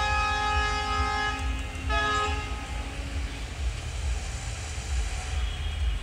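Multi-tone horn of a WDM3D diesel locomotive: one long blast that stops about a second and a half in, then a short second blast at about two seconds, over a low rumble.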